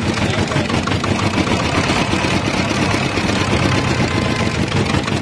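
Belt-driven sugarcane juice crusher running, its geared steel rollers making a steady, rapid clatter as a cane stalk is fed through and crushed.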